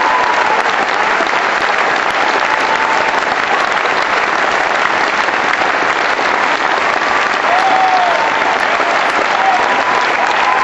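Large audience applauding steadily at a curtain call, with a few short cheers rising above the clapping.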